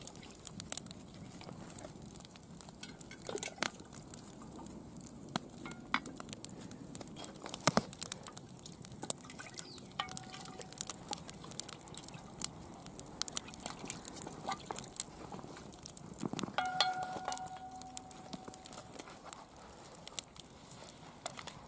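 A wooden spoon stirring beef stew in a cast iron cauldron, with scattered sharp clicks and pops from the wood fire burning under the pot.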